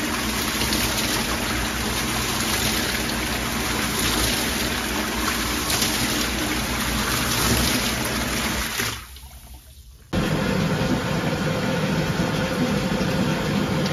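Whirlpool pump of an American Standard jetted tub running, its jets churning the filled tub's water, during a test run after installation. About nine seconds in the sound drops away for a moment, then the pump's steady hum and running water return.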